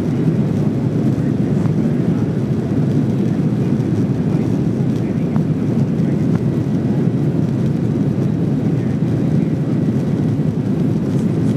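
Steady low rumble of a Boeing 737-800's CFM56 jet engines and airflow, heard from inside the cabin while the airliner rolls along the ground. It holds an even level, with no rising spool-up.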